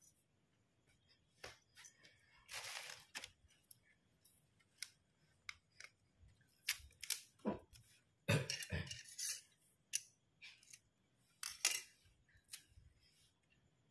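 Thin bamboo skewers being snapped in two by hand: scattered sharp snaps and clicks, with a short rustle about two and a half seconds in and a cluster of louder cracks around eight seconds in.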